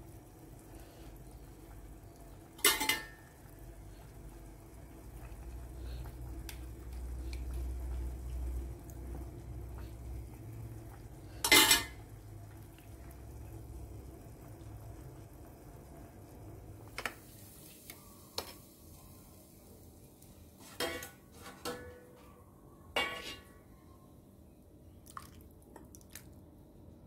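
Plastic ladle knocking against a stainless steel pot of soup: two sharp clanks, then a run of lighter knocks later on.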